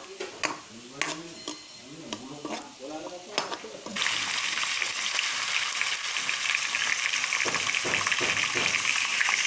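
A metal spoon clicking and scraping in a metal wok while garlic sautés. About four seconds in, a loud, steady sizzle of sliced pork frying in hot oil takes over.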